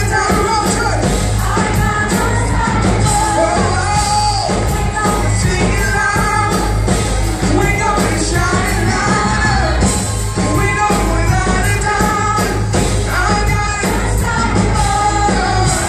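Live worship band playing an upbeat rock-style song, several singers singing together over guitars and a steady band backing, echoing in a large hall.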